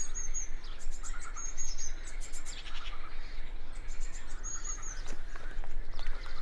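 Birds chirping: short high phrases repeated every second or two, with lower chirps between them, over a low steady hum.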